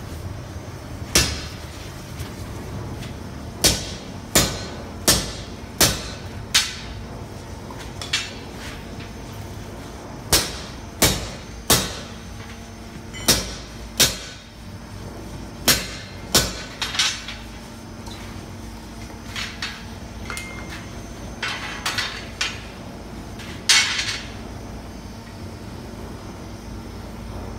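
Hand hammer striking a punch held in tongs on a red-hot 20 mm steel bar resting on an anvil, hot-punching a hole through the bar. About twenty sharp, ringing metal blows come singly and in quick runs of two or three, with pauses between.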